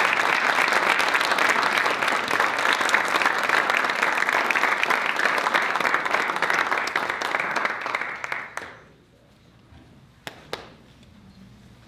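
A room full of people applauding, the clapping fading out about nine seconds in. Two short knocks follow near the end.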